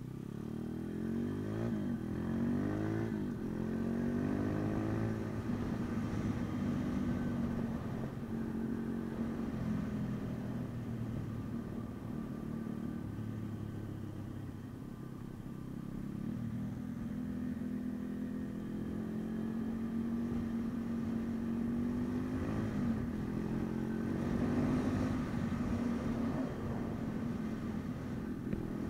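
MRF 140 RC pit bike's single-cylinder engine under way, revving up through the gears in the first few seconds and again about three-quarters of the way through, running steadily in between.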